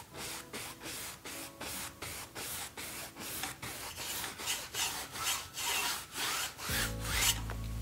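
Paintbrush scrubbing acrylic paint onto a stretched canvas: a quick run of short scratchy strokes, about three or four a second. Near the end a low steady hum comes in.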